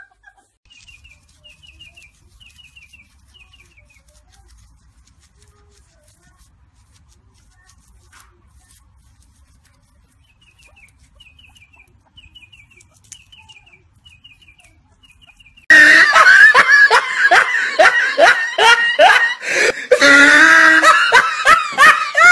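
Faint runs of quick, high chirps, then about sixteen seconds in a loud burst of people laughing starts suddenly and carries on.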